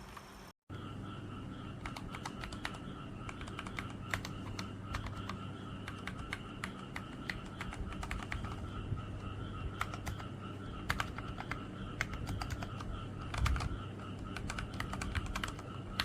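Typing on a mechanical keyboard fitted with PBT keycaps: a continuous, irregular run of key clacks over a faint steady hum.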